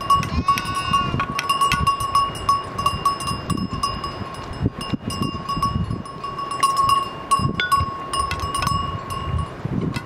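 Bells on a flock of sheep or goats ringing on and off, with one clear tone holding steady throughout. Close by, irregular low smacking and lapping from a dog eating out of a steel bowl.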